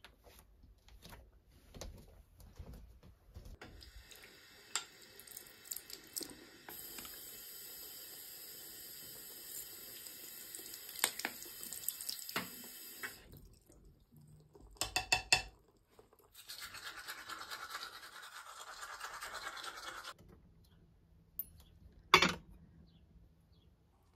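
Bathroom tap running into a ceramic sink while a toothbrush is rinsed under the stream, then four quick knocks and a few seconds of toothbrush scrubbing. One sharp click near the end.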